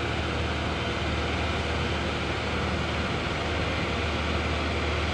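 Steady, even rush of surf breaking on a beach, with a constant low hum underneath.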